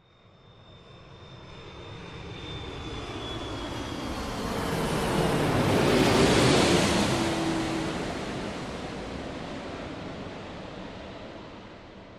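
Airplane flying overhead: the engine noise builds from silence, is loudest about six seconds in, then fades away. Its pitch drops as it passes.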